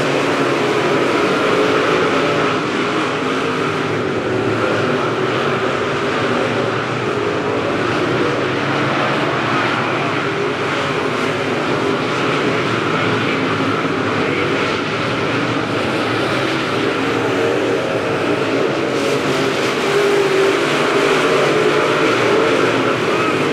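Dirt late model race cars' V8 engines running at racing speed around a dirt oval, a steady, loud engine noise with no let-up.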